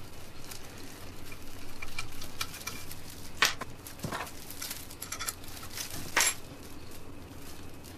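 Small metal parts of a Briggs and Stratton engine being handled during teardown: a few sharp clicks and knocks as the crankshaft is turned and the connecting-rod bolts come out and are set down on a wooden bench, the loudest about three and a half seconds in and again near six seconds, over a faint steady background noise.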